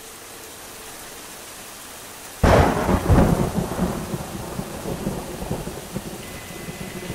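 Steady rain, then about two and a half seconds in a sudden loud thunderclap that rumbles and fades away over the next few seconds.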